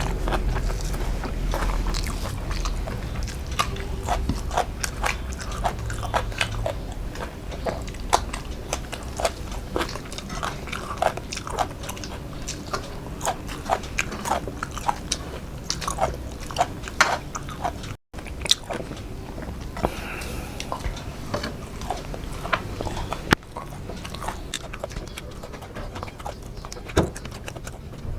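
A person chewing and eating a meal of rice, fish and pakoda close to the microphone, with many irregular wet mouth clicks and smacks.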